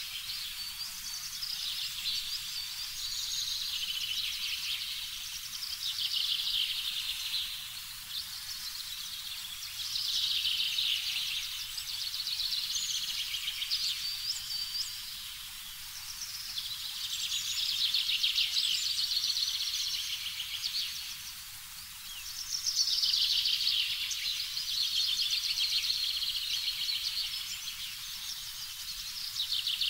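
A chorus of high, rapid trilling animal calls that swell and fade every few seconds, as in a nature ambience.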